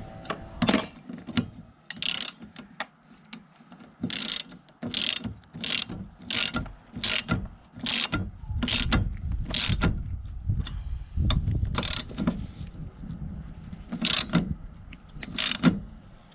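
Ratchet spanner clicking in a run of quick strokes, about one to two a second, then a couple more near the end, as a fitting on a bus wiper spindle is worked.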